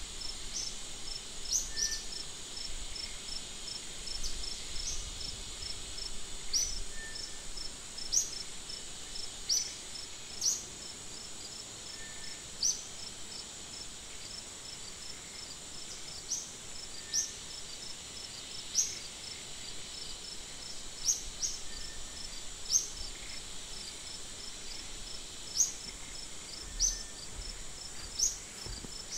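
Insect chorus: a steady high-pitched drone with a fast row of ticks, and short rising chirps every second or two, which are the loudest sounds.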